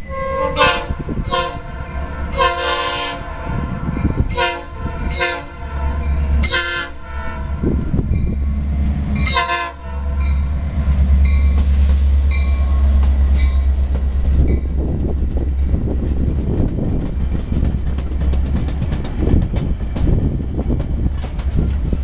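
Metra MP36 diesel locomotive's air horn sounding a string of about seven blasts, short and long, over the first ten seconds. The locomotive then passes close with its diesel engine running steadily, followed by bilevel passenger cars rolling by with the clickety-clack of wheels over the rail joints.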